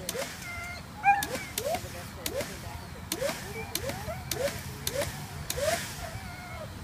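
A dog yelping over and over in short cries that rise in pitch, roughly one a second, with sharp snapping clicks in between.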